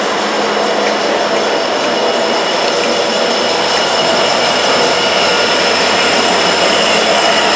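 Diesel freight locomotives of a multi-unit lashup, a GE Evolution-series unit and then an EMD SD70M, passing at close range: engines running under load with the rumble of wheels on rail and a steady high-pitched whine.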